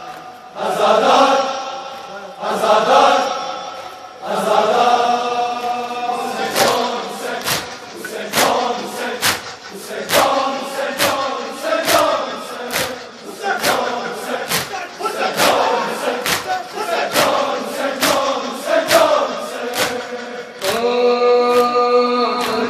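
Many men chanting a nauha, a Shia mourning lament, in unison, joined from around six seconds in by rhythmic chest-beating (matam) slaps about twice a second.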